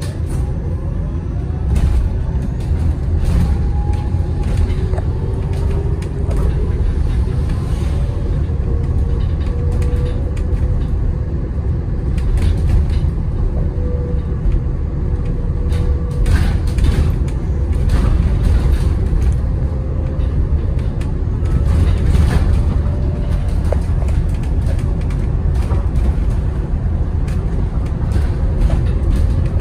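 Inside a moving BYD Alexander Dennis Enviro200EV battery-electric bus: steady low road rumble, with a faint electric drive whine that glides up and down in pitch as the bus speeds up and slows. A few short rattles and knocks come through, the clearest about halfway in and again about two-thirds in.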